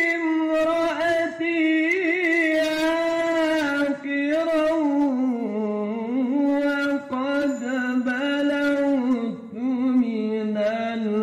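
A man chanting Quran recitation in melodic tajwid style in maqam Bayyati, holding long ornamented vowels in one drawn-out phrase. He takes a few short breaks, and about halfway through the melody steps down to a lower pitch.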